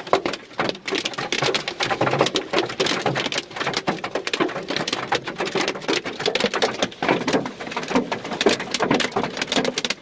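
Hailstones hitting the car's roof and windscreen, a dense, irregular clatter of impacts heard from inside the car.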